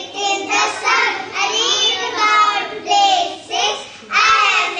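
A small group of young children singing together in high voices, in short phrases.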